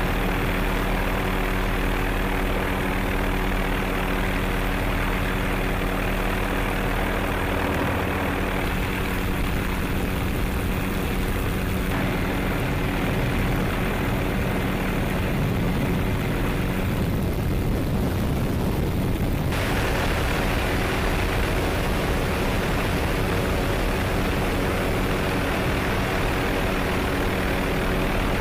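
Helicopter in flight: a steady, loud drone of turbine and rotor noise with several constant low hum tones. The sound shifts abruptly about twelve and again about twenty seconds in.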